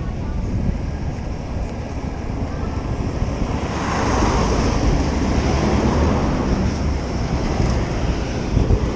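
Wind rushing over the microphone while riding, with a passing motor vehicle swelling up about four seconds in and fading away.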